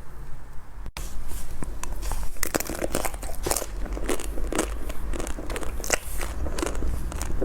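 Biting and chewing into the chocolate shell of a Magnum ice cream bar: a dense run of crisp cracks and crunches that starts about a second in.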